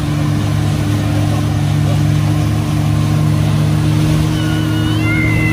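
100-horsepower outboard motor running steadily at speed, towing an inflatable tube, over the rush of wind and churning wake water. A faint high-pitched voice rises near the end.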